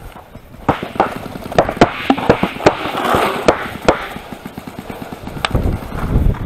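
Paintball marker fire: sharp, irregular pops of paintball shots, about ten in the first four seconds and one more later, with a low rumble building near the end.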